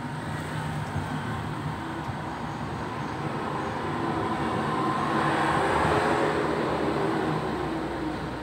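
A vehicle passing: a steady rumbling noise that swells to a peak about six seconds in and then fades.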